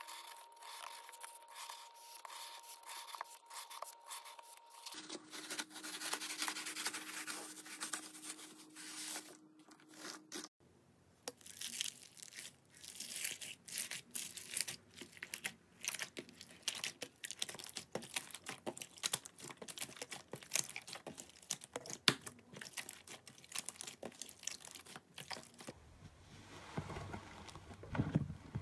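Hand-played crunchy and slime ASMR sounds in quick succession: first a thin wire slicing down through dry floral foam with a crunchy scraping crackle. From about ten seconds in, floam slime packed with foam beads is squeezed by hand, giving a dense run of small crackles and pops. Near the end thick, soft slime is kneaded with fuller, lower squishing.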